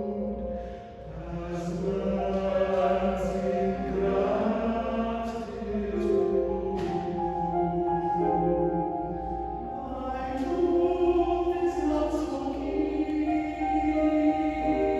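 A choir singing in parts, several voices holding and moving through sustained chords, with sung consonants audible.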